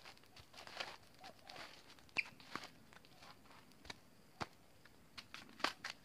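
Coconuts being husked: scattered sharp cracks and knocks with short tearing scrapes as the fibrous husk is pried and pulled off. A brief high chirp sounds about two seconds in.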